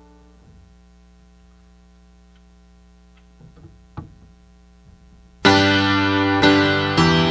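A grand piano's held chord dies away, leaving a steady low hum with a few faint taps and one sharp click about four seconds in as the sheet music is handled at the piano. About five and a half seconds in, the piano starts playing loudly: a struck chord followed by more chords about once a second.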